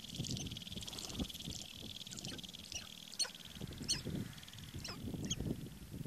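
Sharp-tailed grouse calling: a run of short, sharp high-pitched notes, the loudest about three and four seconds in, over low bursts and a steady high buzz.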